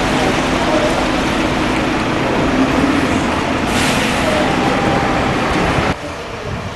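A large vehicle running close by: a loud, steady engine and rolling noise with a low hum, cutting off abruptly near the end.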